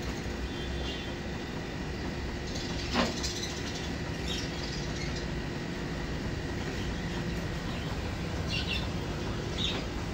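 Steady background hum with a few short, high chirps scattered through it and one sharp knock about three seconds in.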